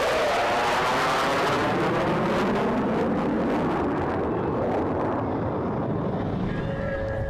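F-16 Fighting Falcon jet flying past: a loud jet rush whose pitch pattern sweeps and wavers as it passes, slowly fading. Music comes in near the end.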